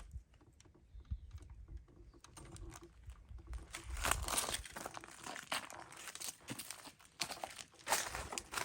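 Close handling noise: crinkling and rustling with many small, irregular clicks, growing louder about three and a half seconds in, over a low rumble.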